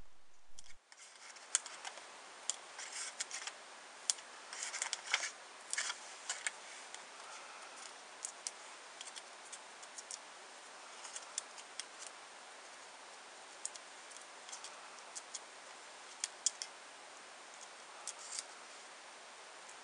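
Small paper crackles and ticks as fingers peel release backing off foam adhesive pads on the back of a die-cut paper figure and handle the paper. The ticks come thick in the first few seconds, then sparse, over a faint steady hiss.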